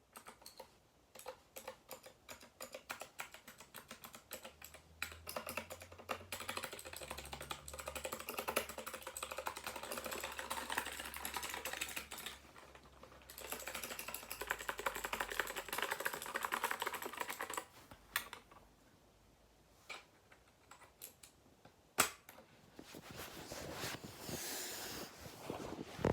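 GK61 mechanical keyboard with clicky Gateron optical blue switches being typed on: fast runs of crisp clicking keystrokes with a short break, then slower single key presses and one sharp, louder click, followed by a brief rustling noise near the end.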